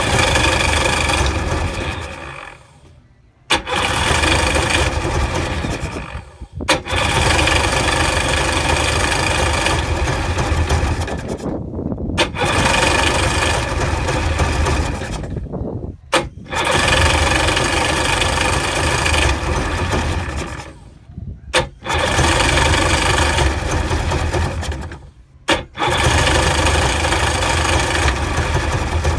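2000 Sea-Doo GTI's two-stroke engine being cranked by its electric starter, about seven cranking attempts of a few seconds each, none catching. It is a no-start after the engine bogged down and died, even with spark present, a rebuilt carburettor and a new fuel selector.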